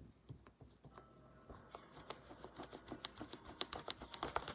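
A run of small sharp clicks with some rubbing, sparse at first and growing quicker and denser from about a second and a half in.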